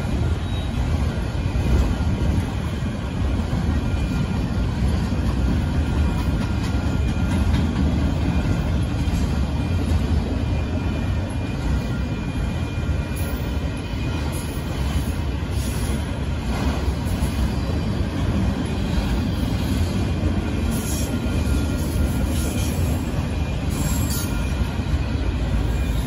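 Freight train of enclosed autorack cars rolling past, a steady rumble of steel wheels on the rails, with short high wheel squeals in the second half.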